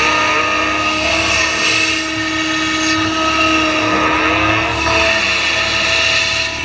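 Hydraulic excavator's diesel engine running under load, heard close up from the machine itself, with a steady hydraulic whine. The whine's pitch bends up and down as the boom swings a bucket of dirt over a dump truck, dumps it, and swings back.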